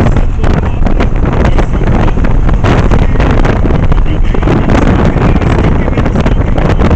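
Wind buffeting the microphone of a motorcycle-mounted camera at highway speed, loud and gusty, with the motorcycle's engine and road noise running underneath.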